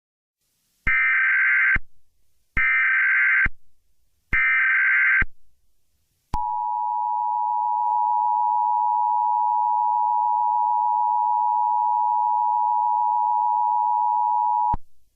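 Emergency Alert System opening signal: three short screeching SAME header data bursts, about a second apart, announcing a new alert, followed by the steady two-tone EAS attention signal (853 and 960 Hz) held for about eight seconds and then cut off.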